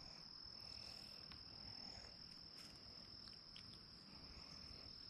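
Faint, steady high-pitched trilling of crickets, with a few soft clicks.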